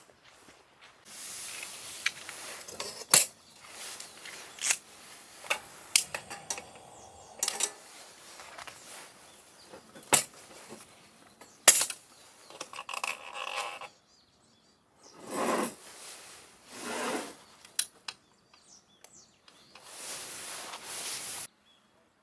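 Gear being handled at close range: scattered sharp clicks and knocks, the loudest a few seconds in and again around the middle, among rustling and scraping, with two short swishes and a stretch of rustling later on.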